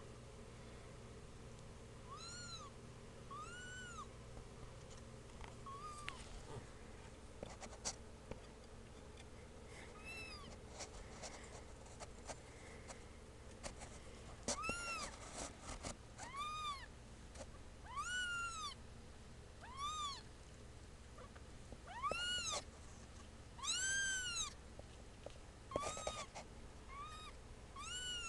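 Two-week-old kittens mewing: short, high, thin cries that rise and fall in pitch, a few at first and coming much more often from about halfway through, with a few faint clicks between them.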